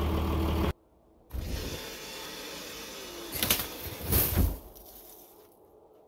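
A low diesel idle hum that cuts off abruptly under a second in. Then, as a snow-covered loader bucket moves close by, a steady hiss with two sharp crunching bursts about three and four seconds in, fading away after.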